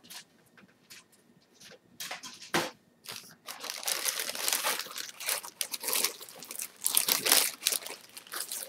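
Clear plastic bag crinkling as a hand handles the plastic model-kit sprues packed inside it: a few separate crackles at first, then continuous crinkling from about three and a half seconds in.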